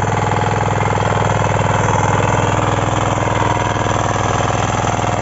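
Engine of a 9 HP KK-IC-400E power weeder running steadily at a constant speed while tilling, a fast, even pulsing with no change in pitch.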